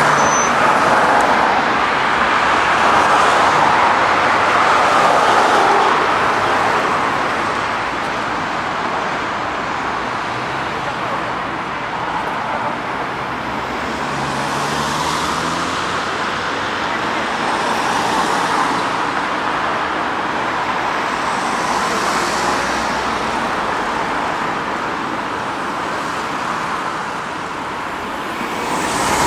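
Busy city road traffic: cars passing one after another on a wide multi-lane street, their tyre and engine noise swelling and fading every few seconds.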